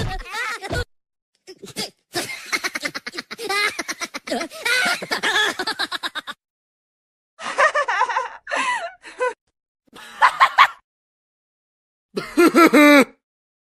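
A string of short comic voice sound effects, laugh- and speech-like, played one after another with silent gaps between them.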